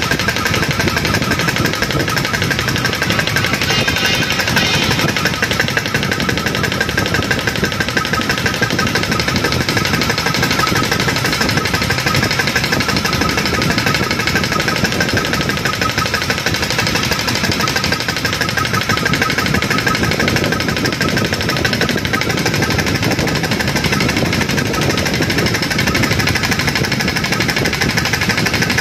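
FTI pneumatic diaphragm pump running on compressed air, with a rapid, steady pulsing.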